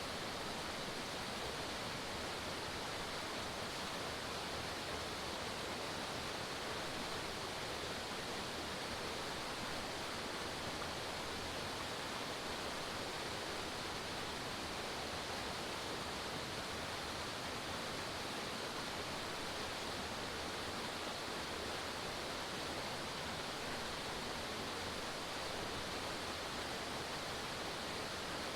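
Forest waterfall: water falling and splashing in a steady, even rush with no breaks.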